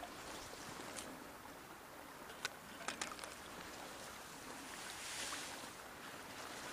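Shallow river water flowing, with a few sharp splashes and clicks as a hooked chub thrashes at the surface and is scooped into a landing net. A brief louder rush of water comes about five seconds in.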